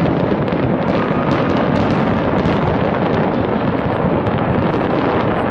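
Fireworks display in a continuous barrage: many shell bursts and crackles overlapping into one unbroken din, with sharp pops throughout.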